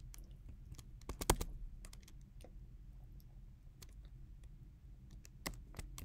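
Faint, scattered small clicks over a low steady room hum, with a brief cluster of louder clicks about a second in.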